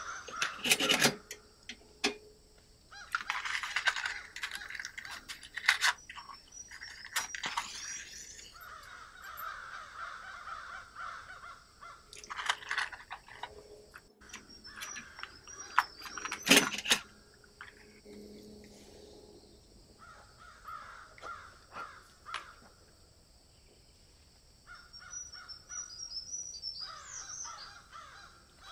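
Crows cawing in repeated rough calls, with small birds chirping high above them. Several sharp clicks and knocks as an oil hurricane lantern is handled and lit; the loudest come about a second in and just past halfway.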